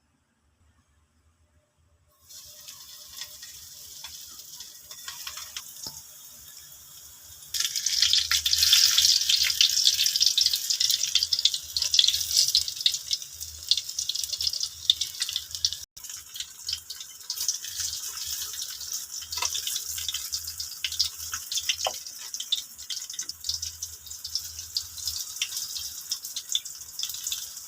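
Saba bananas sizzling and crackling in hot frying oil. The sizzle starts about two seconds in and grows much louder a few seconds later.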